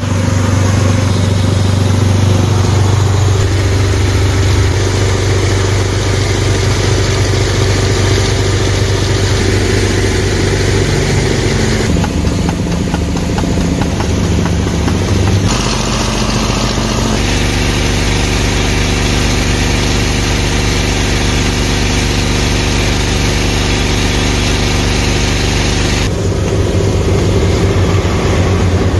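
Engine-driven transfer pump running steadily while pumping ballast fluid into a tractor tire, its tone shifting a few times along the way.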